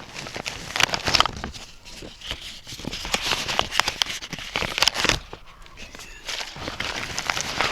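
Footsteps crunching and crackling irregularly over the forest floor.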